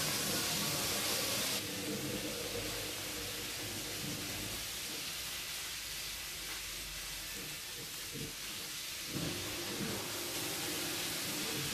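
A steady hiss of background noise, with faint indistinct low sounds beneath it for the first few seconds and again from about nine seconds in.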